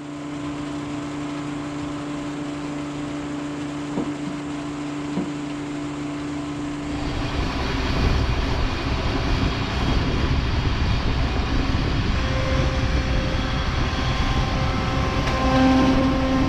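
Farm machinery running: a steady engine hum with a couple of faint clicks, then, about seven seconds in, a sudden change to a louder, rougher running sound with a heavy low rumble.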